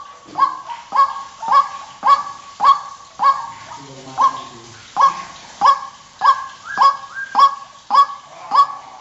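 White-breasted waterhen giving its harsh "kru-ak" call over and over, about two calls a second. This is the monotonous daytime call used as a trapping lure.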